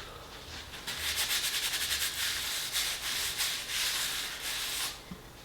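Rapid dry rubbing, a scratchy back-and-forth noise of many quick strokes, starting about a second in and lasting about four seconds.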